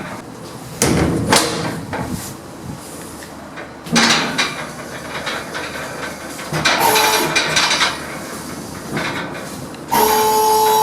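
Passenger lift machinery: doors and car clunking and rattling several times. About ten seconds in, a steady two-note hum starts suddenly.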